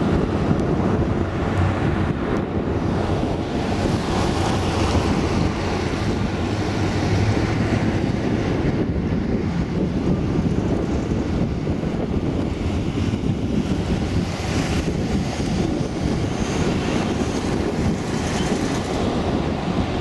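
Twin Pratt & Whitney PT6A turboprops of a Piper PA-31T Cheyenne II climbing away after takeoff, a distant steady rumble, mixed with heavy wind noise on the microphone.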